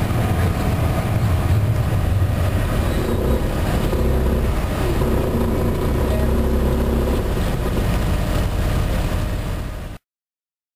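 Cabin ride sound of a 2010 MCI D4500CT coach under way: its Cummins ISM diesel engine and road noise make a steady low rumble. It fades slightly and then cuts off suddenly near the end.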